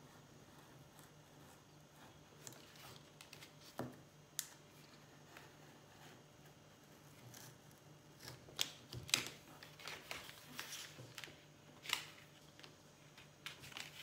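Craft knife blade cutting through a paper print on a cutting mat: faint, scattered scratchy strokes and small clicks, coming more often in the second half, with the paper rustling as the cut print is handled.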